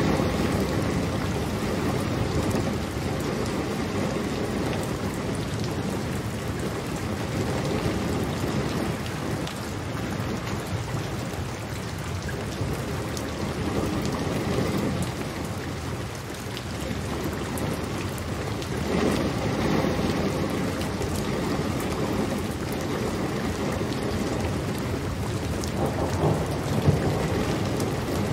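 Steady, heavy rainfall, with low rumbles of thunder rolling in several times, the strongest near the end.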